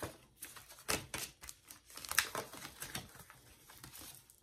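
Small paper cards and packaging being handled by hand: a run of irregular light clicks and rustles, the loudest about two seconds in.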